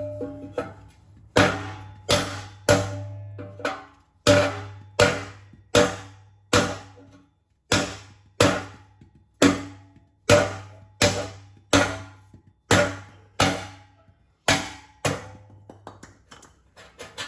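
A mallet striking a block of wood held against a BMW M2 exhaust tip: a steady run of sharp knocks about every three-quarters of a second, each with a brief ring from the metal tip. The tip is being driven off the pressure clips that hold it on.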